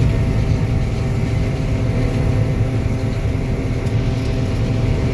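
An older combine harvester running steadily: an even engine drone with a strong low hum and several steady machine tones above it.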